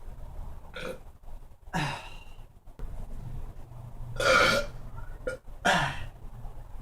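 A man burping a series of times on command, with the loudest and longest burp about four seconds in.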